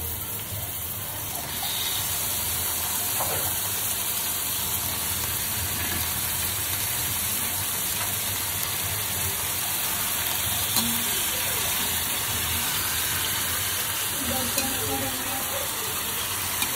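Raw chicken pieces frying in hot oil and onion-tomato masala in a steel kadhai, sizzling steadily and getting louder a second or two in, with a slotted metal spatula stirring through them.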